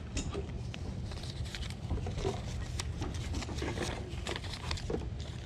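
Paper banknotes rustling and crinkling in quick, irregular crackles as dollar bills are counted out by hand, over a low wind rumble on the microphone.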